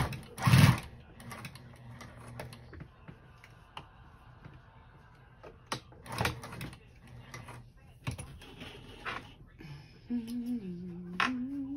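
Electric sewing machine stitching in a short burst about half a second in, then quilt fabric being shifted and smoothed with scattered soft clicks and rustles. Near the end a person hums a few low notes.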